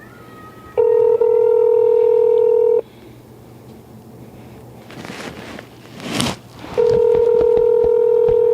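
Telephone ringback tone through a phone's speaker: two steady two-second rings about four seconds apart, the called line ringing unanswered. There is a short rustle between the rings.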